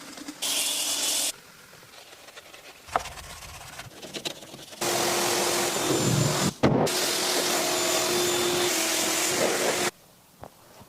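A motor with rushing air, vacuum-like, runs in two bursts: briefly, under a second in, then for about five seconds from near the middle, with a steady hum and a brief cut-out partway through. Each burst starts and stops suddenly.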